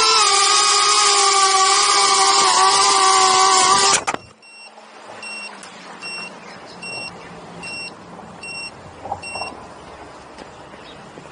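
Small ducted-propeller quadcopter's motors and propellers whining steadily in several wavering tones, cutting off suddenly about four seconds in as the drone comes to rest. After that come about nine short, high electronic beeps, roughly two a second.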